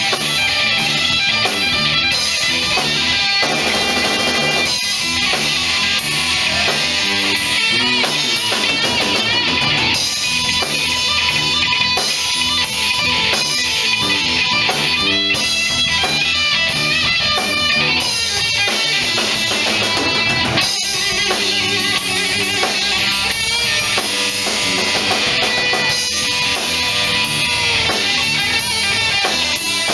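Live band playing an instrumental passage: guitar over a drum kit, with no singing.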